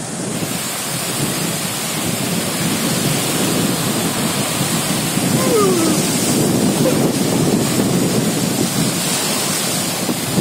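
Fast river water released through the Tungabhadra Dam's open gates, rushing and churning in breaking standing waves: a loud, steady rush of water.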